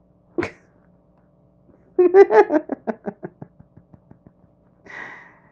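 A person laughing: a run of quick voiced "ha" pulses that fade away, with a short breath before and a breathy exhale after.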